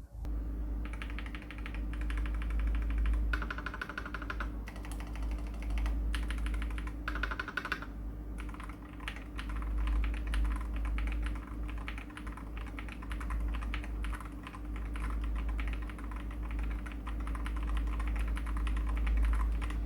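Fast typing on a Furycube M68 HE Hall-effect (magnetic switch) mechanical keyboard: a dense run of keystroke clicks that breaks off briefly twice, with a steady low hum underneath.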